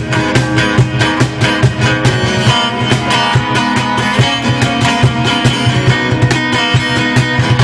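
Live acoustic band music: two acoustic guitars strumming, with a cajón beating out a steady rhythm.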